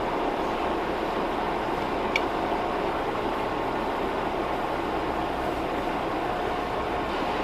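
Metal lathe running with a steady mechanical hum and a faint whine, with one sharp click about two seconds in.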